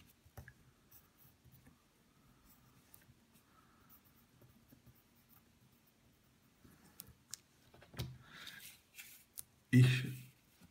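Pencil writing on paper: faint scratching strokes with a few small clicks. A busier run of scratching comes about eight seconds in.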